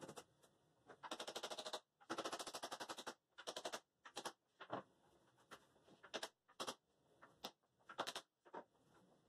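Two quick runs of rapid knocking, about a dozen sharp raps a second, followed by scattered single knocks and clicks as a pine table frame is handled and its joints are worked.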